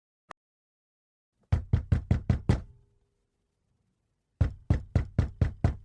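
Rapid knocking: a run of six quick knocks, a pause of nearly two seconds, then a second run of about seven, each knock with a dull low thud.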